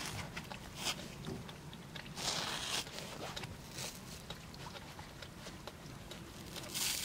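Short strokes of a blade cutting through a car-wash sponge, with a longer stroke about two seconds in and another near the end, and light handling ticks between.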